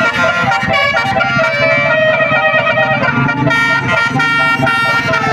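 A bus's telolet basuri multi-tone air horn playing a melody: several horn notes sound together and shift pitch in quick steps, over a steady low rumble.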